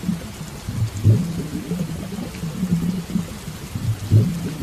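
Rain falling steadily, under a louder low rumble that swells about every three seconds.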